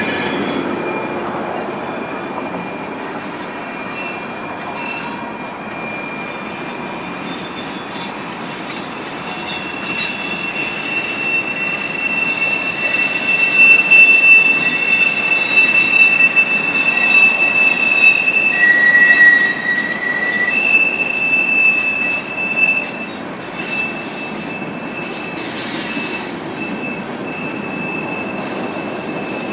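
Freight train cars rolling past with steel wheels squealing: a steady rolling rumble under high, thin squeals that swell and are loudest from about ten seconds in to about twenty-three seconds in, with a second, differently pitched squeal near the nineteen-second mark.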